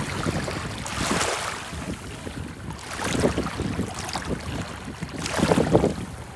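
Waves on a large reservoir splashing in three surges about two seconds apart, each swelling and falling away.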